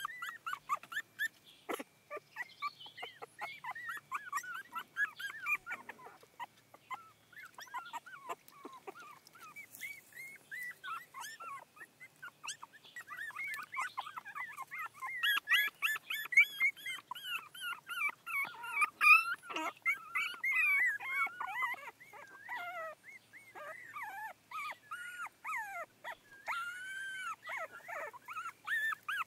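Puppies whimpering and crying: many short, high squeals that bend up and down, overlapping one another and loudest around the middle.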